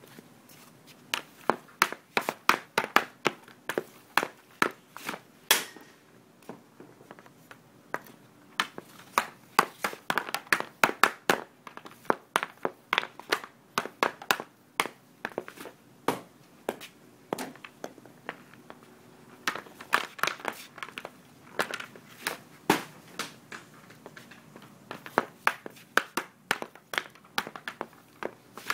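A wooden hockey stick's taped blade strikes a puck and the wooden deck boards in quick runs of sharp clicks, several a second, with short pauses between the runs, as in stickhandling.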